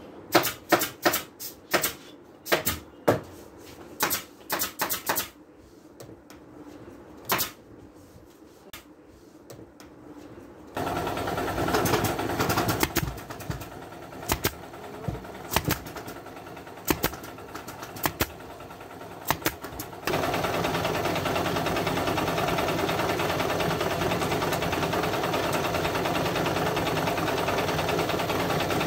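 Pneumatic upholstery staple gun firing again and again, sharp clacks at uneven intervals as staples are driven through fabric into the frame. About two-thirds of the way in, a steady, even rushing noise starts and holds to the end.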